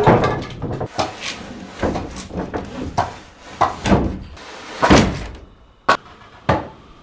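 A series of irregular knocks and thuds, about ten in seven seconds, unevenly spaced, with two sharp single knocks near the end.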